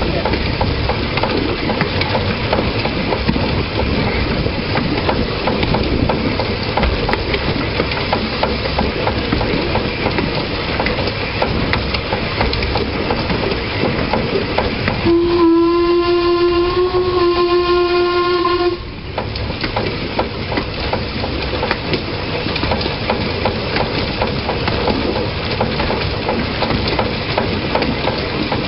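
Narrow-gauge steam locomotive running along the track with steady running noise and faint regular clicks. About halfway through it sounds its whistle once, a single steady note held for nearly four seconds.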